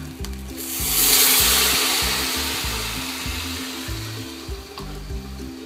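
Hot water poured into a pot of rice and lentils fried in oil bursts into a loud hiss about half a second in, then slowly dies away over a few seconds, over background music.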